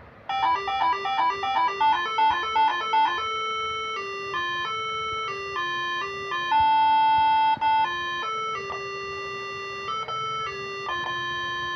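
Moreno MS7 air-horn melody module playing its tune number 2, two-part horn-like notes: a quick run of short notes for about three seconds, then slower held notes.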